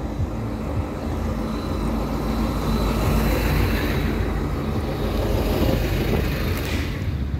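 A light truck drives past close by: its engine and tyre noise builds to the loudest point about five to six seconds in, with a hiss over it, and cuts off sharply near the end.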